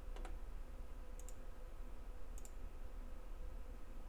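Computer mouse clicking a few times, faintly: one click just after the start, then two quick pairs of clicks about a second apart, over a low steady hum.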